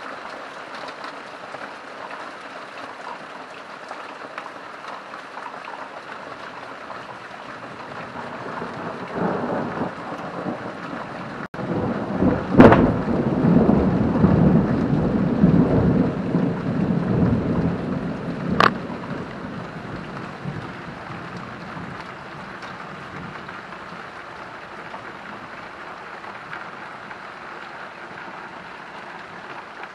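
Steady rain falling, with a peal of thunder that swells about a third of the way in, breaks with a sharp crack, rumbles loudly for several seconds with a second sharp crack, then dies away, leaving the rain.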